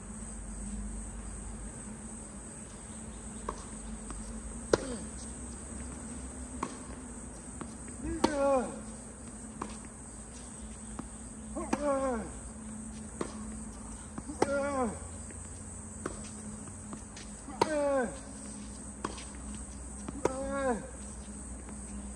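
Tennis rally: sharp racket-on-ball hits every one to two seconds, five of them followed by a short cry falling in pitch. Under it runs a steady high chirring of insects.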